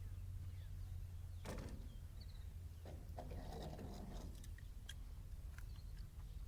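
Steady low electrical hum under a few light clicks and two short rustles, about a second and a half in and again around three seconds in, from die-cast toy cars and track being handled between races.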